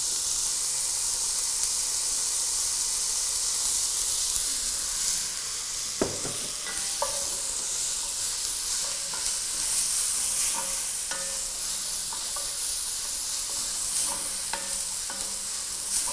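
Chopped onion sizzling in olive oil over medium heat as it is stirred with a wooden spatula in a heavy enamelled pot. The spatula knocks against the pot now and then, loudest once about six seconds in.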